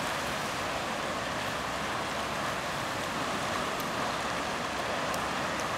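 Steady rushing noise of sea surf breaking on the shore below, even and unbroken.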